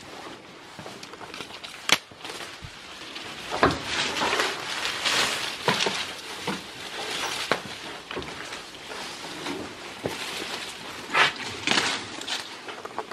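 Leafy branches rustling and crackling as goats pull at the greens, with a few sharp knocks on the hard floor.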